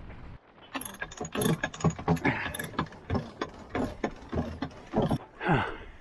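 Irregular ratchet-like clicking and clattering of sailboat deck hardware being worked, a rapid run of sharp clicks starting about a second in and going on until near the end.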